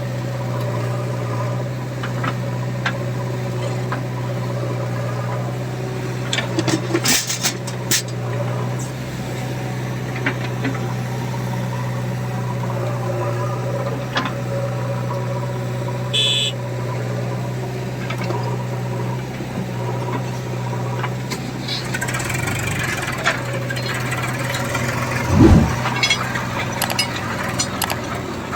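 A diesel engine running steadily, with scattered clanks and knocks, a short high-pitched tone about halfway through, and a heavier thump near the end.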